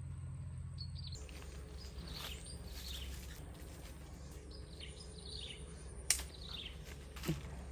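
Small birds chirping: short, high, falling chirps repeated every second or so over a low steady background hum, with one sharp click about six seconds in.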